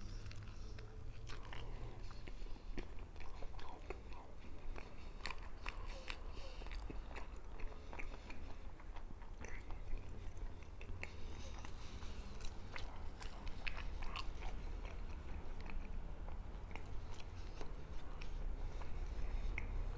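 A person biting into and chewing a chilaquiles torta, a bread roll filled with sauced tortilla chips. Many small wet and crunchy clicks are scattered through the chewing.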